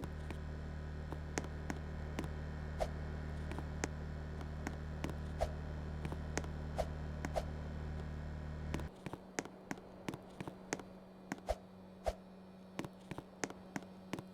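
Air conditioner unit running with a steady low hum that cuts off suddenly about nine seconds in. Sharp irregular clicks, several a second, sound throughout.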